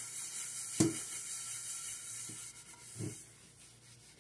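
Soapy sponge scrubbing the outside of a cooking pot: a steady rubbing hiss, with a light knock of the pot about a second in. The scrubbing dies away near the end.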